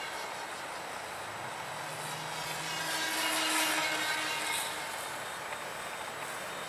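Radio-controlled flying-wing model of an Avro Vulcan passing close in flight: its motor and propeller rise to a whoosh about three to four seconds in, then fade, over a steady background hiss.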